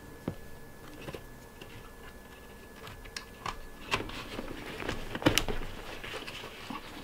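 Handling of a pleated window blind: scattered light clicks and rustles as a plastic end cap is fitted onto the end of its rail, with a sharper knock about 4 seconds in and another about 5 seconds in.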